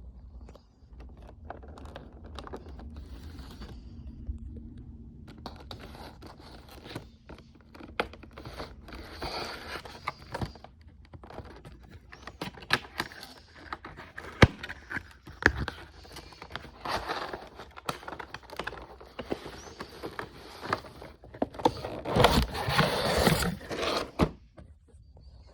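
Packaging of model airplanes being handled: irregular scraping, crinkling and tapping of cardboard and plastic, with a louder stretch of rustling near the end.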